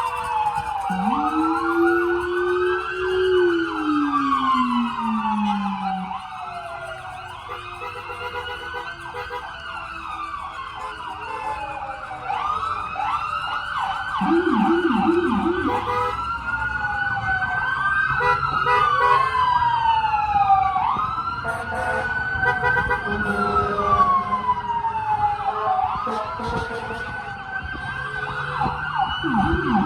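Several emergency-vehicle sirens sounding at once, their wails rising and falling and overlapping. A deeper siren winds up and slowly falls in the first few seconds, and a quick low yelp cuts in about halfway through and again near the end.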